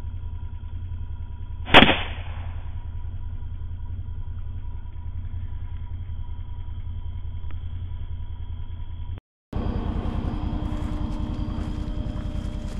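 A single rifle shot about two seconds in, a sharp crack with a short ringing tail, heard over a steady low hum with faint tones. After a cut near the end, louder, rougher noise of wind and movement through brush.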